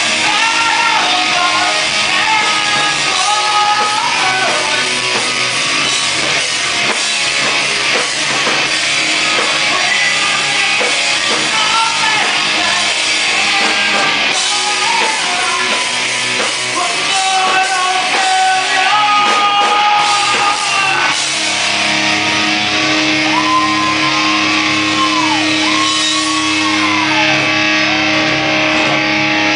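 Live rock band playing loudly, with electric guitars, drum kit and singing. About two-thirds of the way through, the music shifts to long held notes with pitch bends over a steady low note.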